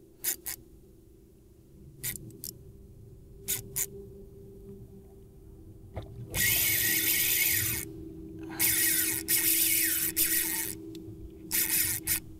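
Spinning reel's drag letting out line under a hooked fish's pull. A few short ticks come in the first seconds, then buzzing runs of about one and a half and two seconds in the second half, and a short one near the end.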